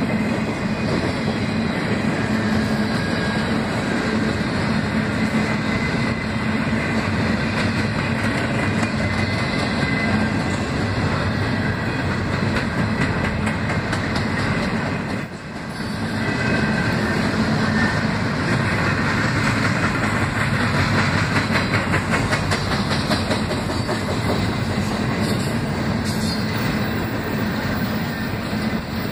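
Freight train of intermodal well cars rolling steadily past, steel wheels running on the rails, with a brief dip in level about halfway through.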